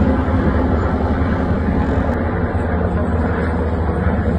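Military helicopter flying overhead: a loud, steady rumble of rotor and engine noise.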